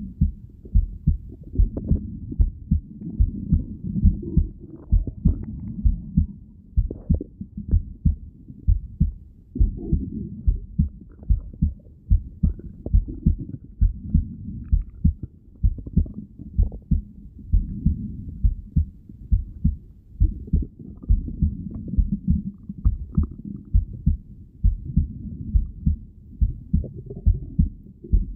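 Heartbeat heard through a stethoscope on the chest: a steady, regular train of low thumps over a faint low rumble.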